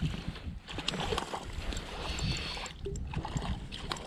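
Wind buffeting the microphone in an uneven low rumble, with a trout splashing at the water's surface at the start and scattered small handling clicks.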